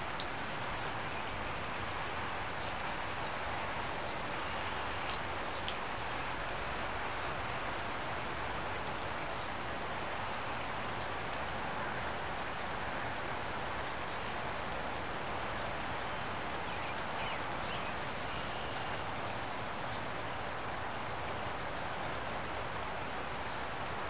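Steady rain falling, an even hiss with a few sharp ticks near the start.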